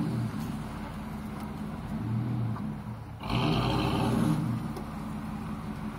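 Ford F-150 pickup truck engine running under throttle as the truck drives through mud, with a louder surge of revving about three seconds in.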